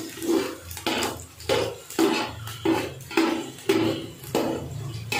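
A spoon scraping and knocking against the inside of a metal pot while chopped onions are stirred as they fry in ghee. The strokes come regularly, about one every two-thirds of a second.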